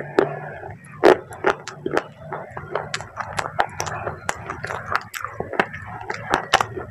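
Close-miked chewing of crunchy baked clay: irregular sharp crunches, a few a second, with wet mouth sounds between them.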